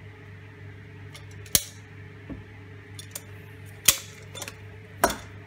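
Hand-held caulking gun clicking sharply three times, about one and a half, four and five seconds in, as its trigger and rod release are worked to squeeze glue out of the cartridge.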